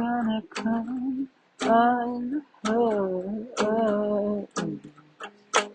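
A woman's voice singing wordless phrases, humming-like and held with a wavering pitch, over sparse acoustic guitar, with short sharp clicks between the phrases near the end.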